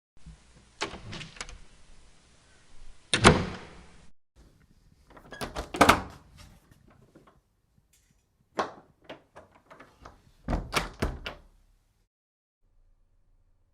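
A door opened and shut several times in a row: light handle and latch clicks, then a heavier thud as it closes each time, three loud closes in all.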